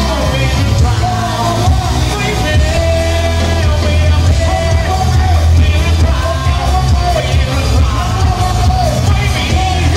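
Live band playing loud through a club PA with heavy bass, while a male vocalist sings into a handheld microphone. It is heard from within the crowd, with some crowd shouting.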